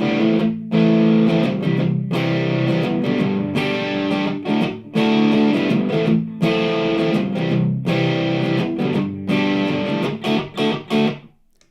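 Overdriven electric guitar from a Chibson copy of a Gibson Les Paul Custom on its middle pickup position, played through an Outlaw Dumble Weed overdrive pedal into a Marshall Origin 50 head: strummed chords left to ring, with shorter, choppier strums near the end before it stops.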